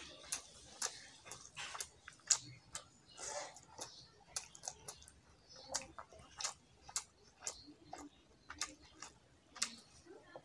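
Close-up eating sounds of rice and spinach dal taken by hand: sharp wet mouth clicks and smacks from chewing, irregular, a couple a second, with softer squelches between.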